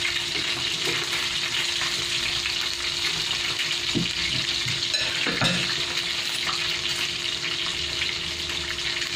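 Pieces of dalag (striped snakehead fish) frying in hot oil in a frying pan: a steady sizzle, with a faint steady hum underneath.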